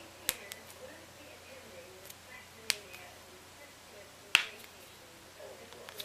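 Finger joints cracking as they are pulled and manipulated: three sharp pops about two seconds apart, the last the loudest.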